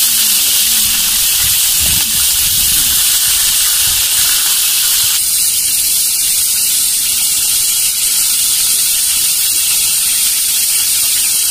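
Shrimp deep-frying in hot oil, a steady loud sizzling hiss that thins slightly about five seconds in.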